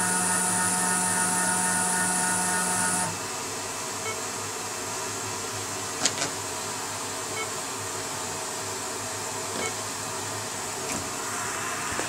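Stepper motors of a CNC router whining at one steady pitch as the machine moves its head toward the tool-length probe; the whine stops about three seconds in. A steady hiss and a few light clicks follow.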